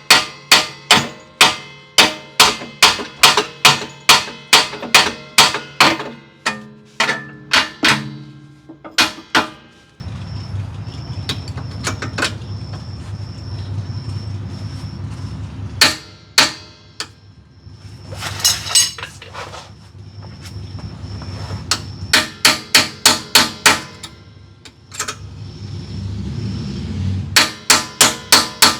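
Hammer blows on steel suspension parts, knocking on the knuckle to free it: runs of sharp metallic strikes at about two to three a second, with a pause in the middle where a steady low hum runs and only a few single blows land.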